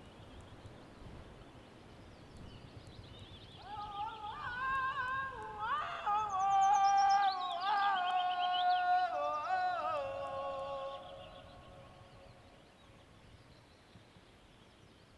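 Ambient music: several layered, held tones that slide up and down in pitch, swelling in about four seconds in and fading away after about eleven, over a faint hiss.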